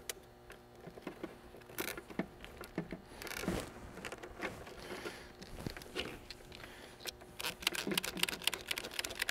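Nylon zip ties and cable handled against a hard plastic box: light rustling and scattered clicks. Near the end comes a quick run of sharp clicks as a zip tie gun pulls a tie tight through its ratchet.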